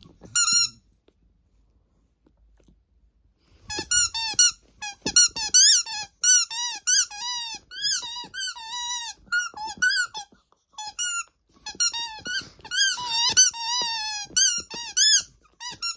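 A dog chewing a rubber squeaky toy, squeezing out short, high squeaks that rise and fall. After a couple of squeaks at the start and a few seconds' pause, they come in quick, near-continuous runs.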